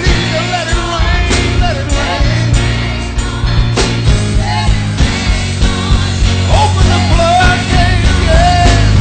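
Gospel praise team singing with band accompaniment: a voice sliding through melodic runs over steady bass and regular drum beats.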